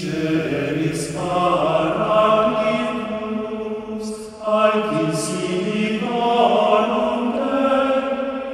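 A choir singing a slow chant in long held chords, the harmony shifting every few seconds.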